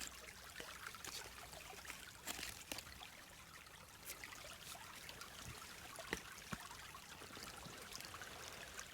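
A small stream trickling faintly, with a few light clicks and taps scattered through.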